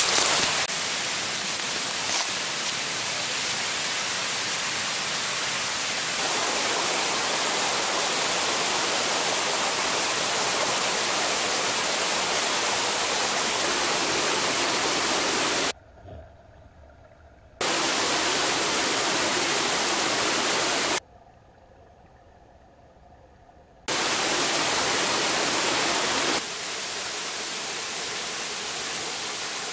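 Steady rushing of a rainforest stream and waterfall, an even hiss of falling water. It cuts away abruptly twice past the middle, leaving a faint murmur for a couple of seconds each time.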